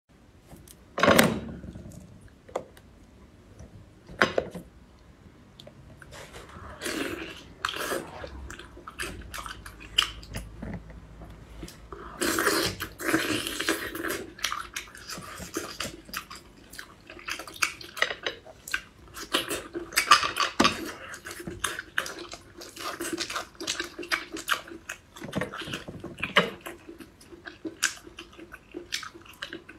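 Eating cooked sea snails: shells clicking and knocking as the meat is picked out with a thin stick, and chewing, in irregular bursts.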